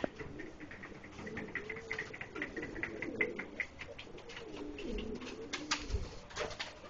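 Domestic pigeons cooing, with a run of quick light clicks for the first few seconds and a few sharp knocks toward the end.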